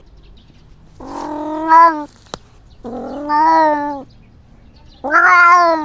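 Domestic cat meowing: three long meows about two seconds apart, each lasting about a second.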